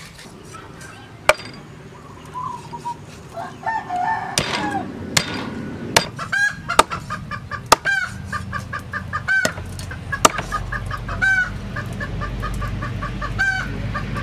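Meat cleaver chopping pork ribs on a wooden chopping block, with sharp chops every second or so. From about six seconds in, a bird calls in quick repeated notes.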